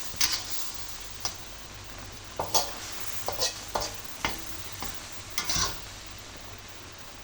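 Food sizzling in a frying pan while a spatula scrapes and stirs it in a series of short, irregular strokes; the strokes die away near the end.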